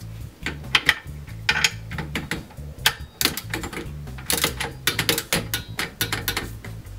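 Ratchet wrench clicking in quick bursts as the brake caliper's mounting bolts are run down, over background music with a steady bass beat.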